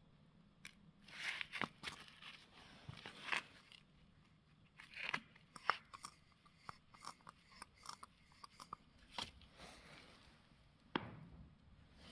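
Tools and metal parts being handled on a workbench: irregular light clicks, taps and short scrapes, with a sharper knock near the end.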